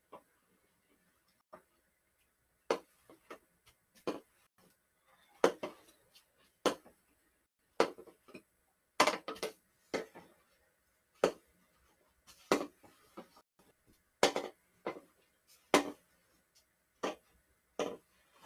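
Hockey stick blade clacking against a small stickhandling ball during one-footed stickhandling: sharp, irregular knocks, about one or two a second, some in quick pairs.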